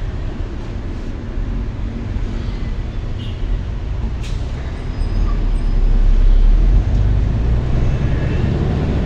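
Vehicle engine and road rumble in traffic, swelling louder about five seconds in, with one short click a little before that.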